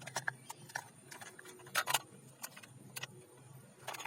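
Toys being handled: irregular light clicks and knocks, with a louder knock about two seconds in and another near the end.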